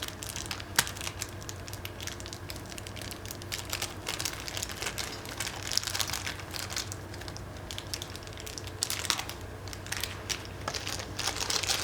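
Repair kit's plastic parts bag crinkling and rustling as it is opened and handled, a steady run of small crackles and clicks.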